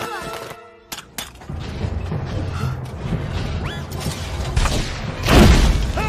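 Animated-film soundtrack: orchestral score with falling notes fades out in the first second, then low mechanical rumbling and creaking, with a sudden loud crash about five seconds in.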